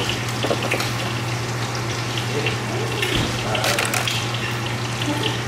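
Countertop ice maker running with a steady hum and a watery hiss. Near the end, ice cubes clink as a hand picks them out of the basket.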